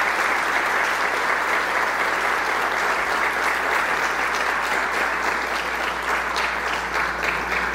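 Audience applauding: a dense, steady wash of hand claps that eases slightly near the end.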